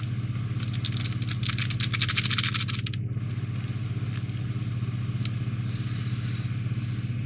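A small plastic parts packet being handled, crinkling with dense clicks for about the first three seconds, then only a few scattered clicks, over a steady low hum.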